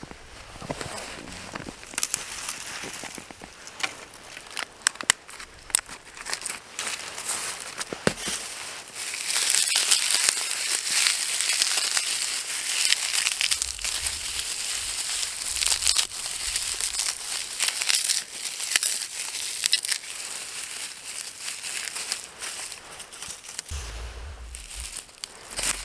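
Dry tinder and twigs crinkling and snapping as they are handled for a campfire. Sharp separate cracks come in the first seconds, and the crackling turns denser and louder from about nine seconds in.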